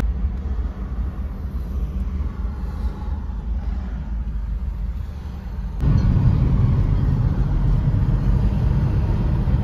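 Hyundai Solaris taxi driving along a city road, heard from inside the cabin: a steady low rumble of engine and tyre noise. It is quieter at first and steps up suddenly about six seconds in.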